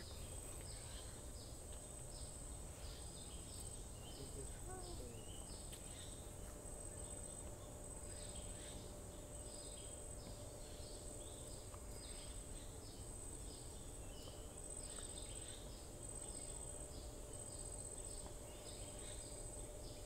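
Faint insect chirping: short high chirps repeating about twice a second over a steady high-pitched whine, with low rumbling noise underneath.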